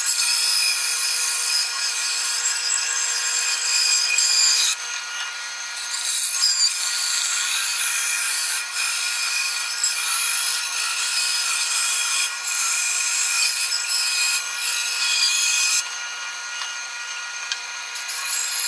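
Bandsaw cutting a thick laminated hardwood blank along a traced curve: a steady machine tone under the cutting noise. The cutting noise drops back briefly about five seconds in and again near the end.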